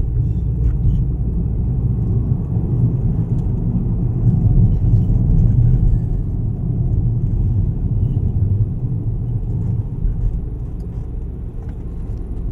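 Proton Preve Turbo heard from inside its cabin while driving downhill: a steady low rumble of engine and road noise, easing slightly near the end.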